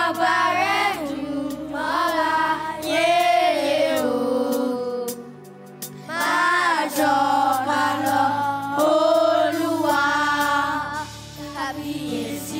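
A children's group singing a Yoruba praise song into microphones over a steady backing, with a short break in the singing about halfway through.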